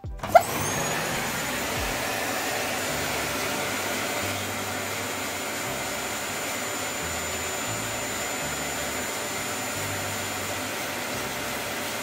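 Dyson vacuum cleaner switched on about half a second in, its motor whining up to speed and then running steadily with a constant high whine over the rush of air.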